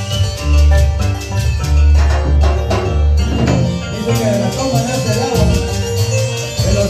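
Live band playing a Latin dance tune through loudspeakers, with harp, guitar and a drum kit with timbales keeping a steady beat. A sung vocal comes in about four seconds in.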